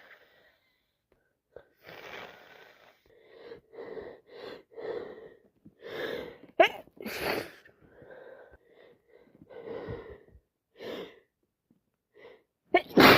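A woman with a heavy head cold, hitching and wheezing through a series of short, catching in-breaths, then sneezing loudly about halfway through; more hitching breaths follow, and a second loud sneeze comes near the end.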